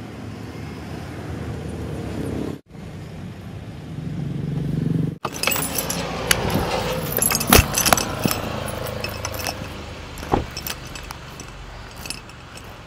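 An MG Hector SUV running steadily, its sound cut off abruptly twice. Then a run of clicks, jingling and a few sharp knocks as the SUV's door is handled.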